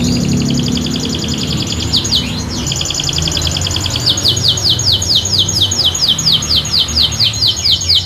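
An AF Panda canary singing. It starts with fast, buzzy trills, and from about four seconds in changes to a quick run of repeated down-slurred notes, about five a second.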